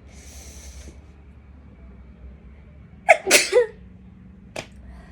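A woman sneezes once, loudly and suddenly, about three seconds in. The sneeze is set off by sneezing powder snorted into her nose. Shortly before it comes a brief breathy hiss.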